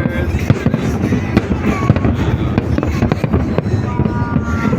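Fireworks display: many bangs and crackles in quick succession over a constant low rumble.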